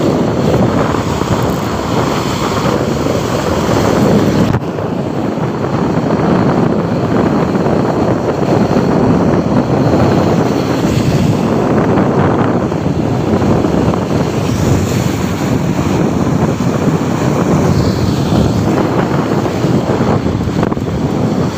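Strong wind buffeting the microphone in a steady loud rumble, over rough surf breaking against a rocky seawall.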